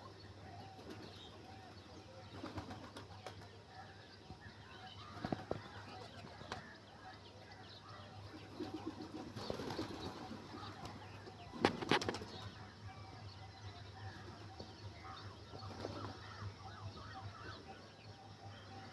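Rock pigeons' wings flapping in short bursts as birds flutter and take off among the flock, the loudest bursts a little past the middle, over a steady low hum.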